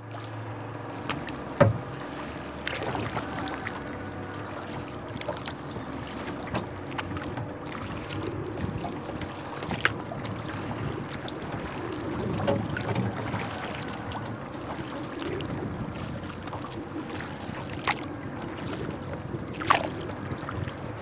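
Water lapping and splashing against a kayak's hull as it is paddled across a lake, with a few sharp knocks, the loudest a little under two seconds in and near the end.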